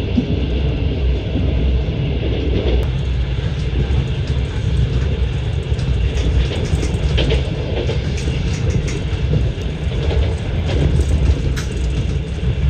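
Passenger train running along the track, heard from inside the carriage: a steady low rumble with a few faint clicks scattered through it.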